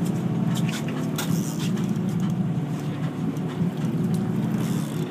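Boat engine running steadily with a low, even hum, a few light clicks and knocks in the first second or two.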